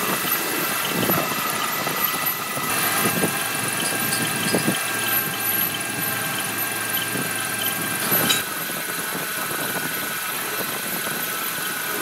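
Metal lathe turning a forged truck axle spindle while the cutting tool shaves off curling chips: a steady machine drone with a thin, high cutting tone. Occasional short clicks, the sharpest about eight seconds in.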